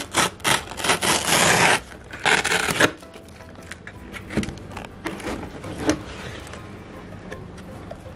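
Paper seal tape being peeled and ripped off the edge of a cardboard takeaway box in several loud ripping strokes over the first three seconds, followed by quieter rustling and light handling of the cardboard as the lid is opened.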